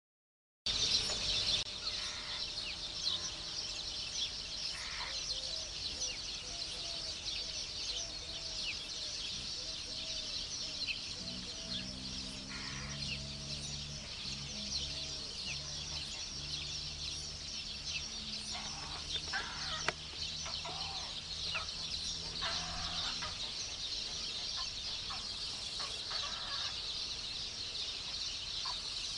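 Grey heron breeding colony: clucking, chattering calls from the nests over a steady high-pitched background din. A low hum joins through the middle stretch.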